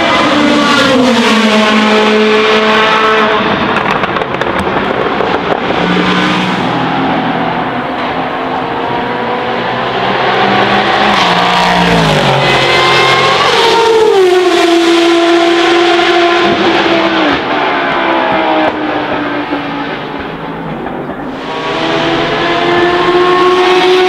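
Racing car engines at high revs on track. The pitch falls in steps as they brake and change down for corners (just after the start, and again around the middle), then climbs again near the end as a car accelerates.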